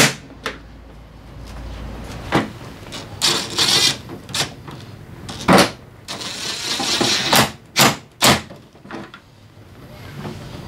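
Hard plastic scooter body panels and hand tools knocking and clicking as they are handled, with a couple of brief scraping rubs.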